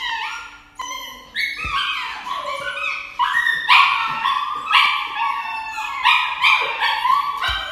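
A dog crying out while held for an injection in the neck: a string of high, wavering howls and yelps, one after another, louder from a little under halfway. The cries are its protest at the needle.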